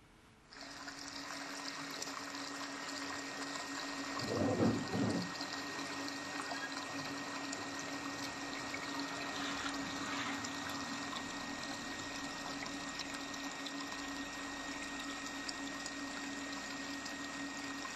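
Tap water pouring in a steady stream into a steel bowl, splashing and bubbling on the water already in it, with a steady low hum underneath. A brief louder low sound comes about four seconds in.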